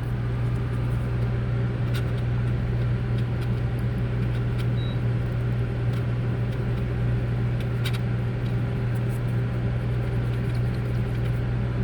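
Steady low electrical hum from workbench equipment, with a few faint clicks of small tools while a battery is desoldered from an iPod's circuit board.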